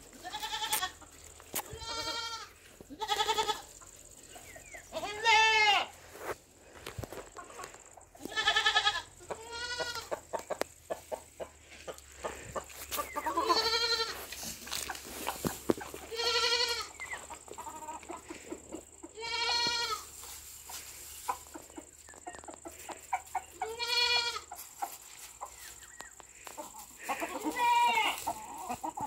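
A hen calling loudly over and over, about a dozen drawn-out calls a few seconds apart, each rising and falling in pitch.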